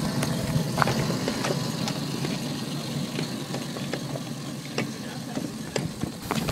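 Small engine of a ride-on miniature diesel locomotive running steadily as it moves along the track, with sharp clicks here and there.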